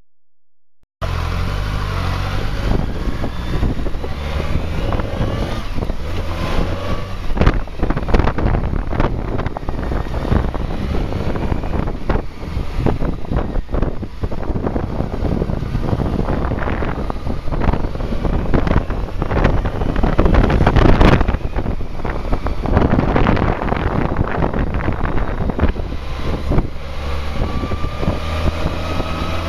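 BMW K1200R Sport's inline-four engine running at low revs, recorded by a camcorder suction-mounted on the bike, with wind buffeting the microphone and frequent short knocks. It starts about a second in.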